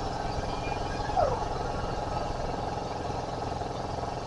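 A steady low engine-like rumble. A short falling squeak comes about a second in.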